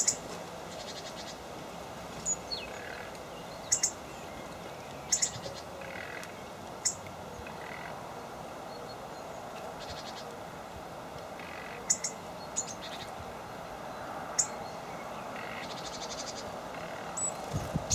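Small birds calling with short, sharp high chirps at irregular intervals over a steady background hiss, with a quick rattling trill near the start and again near the end.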